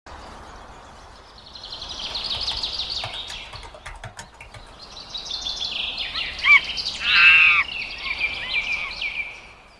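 Birds chirping in fast trills, in two spells, with a louder call about two thirds of the way through; it fades out at the end.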